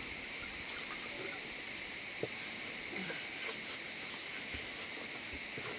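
Steady high insect drone, like crickets or cicadas, with light handling noise and one sharp knock about two seconds in, such as a pot set against the stone ledge.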